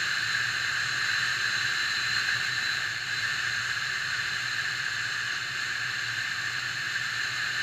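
Steady wind and road noise from a moving vehicle, picked up by a vehicle-mounted camera's microphone: an even hiss with a low rumble underneath and no changes.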